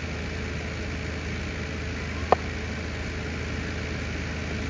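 Steady low hum of an engine running evenly, with one sharp knock a little over two seconds in.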